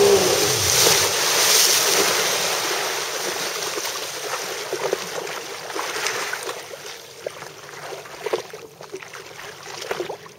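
A Polaris MSX 140 personal watercraft's engine note drops away as it comes off the throttle at the very start. Then rushing water and wind noise on the microphone fade over several seconds to small splashes and lapping as the craft settles.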